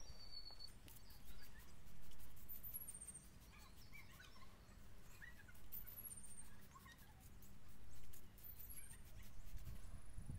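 Short, faint hisses of a pump spray bottle misting stainless-steel cleaner, repeated many times, with small birds chirping: high falling whistles a few times.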